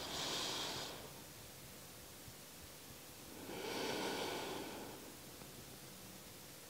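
A woman breathing slowly in and out through her nose during seated relaxation: one breath tails off about a second in, and another comes at about three and a half seconds.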